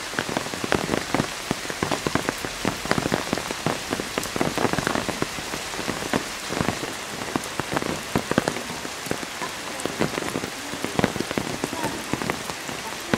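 Heavy rain falling steadily, a dense, irregular patter of individual drops striking hard surfaces over an even hiss.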